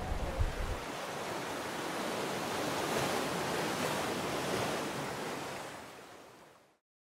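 Wind buffeting the microphone briefly, then a long rush of noise like breaking surf that swells up, fades away and cuts to silence near the end: a whoosh sound effect under an animated logo.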